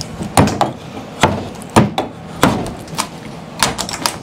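Steel pry bar and screwdriver knocking against a heavy cedar bar top as it is pried loose, a stuck screw still holding it: a run of sharp, uneven knocks, about two a second.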